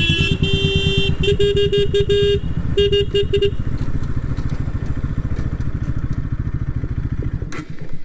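Single-cylinder motorcycle engine running steadily under way, heard from the rider's seat. Over it a horn honks: held briefly at first, then a rapid string of short toots that stops about three and a half seconds in.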